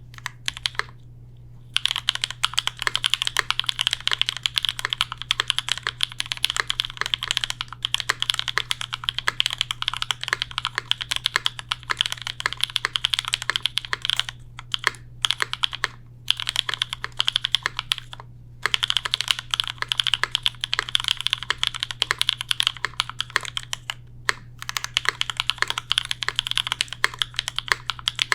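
Continuous typing on a J-02 custom mechanical keyboard with lubed, filmed AEBoards Raeds switches, a carbon fiber plate and GMK keycaps: a dense run of keystroke clacks, broken by a few short pauses. A faint steady low hum sits underneath.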